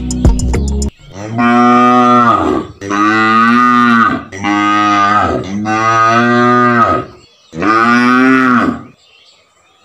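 Cattle mooing: five long, drawn-out calls one after another, each lasting a second or so with short gaps between. Background music cuts off about a second in.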